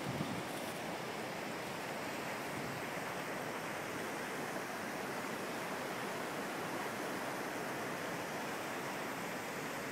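Steady rushing of a mountain stream running over rocks, an even unbroken hiss of flowing water.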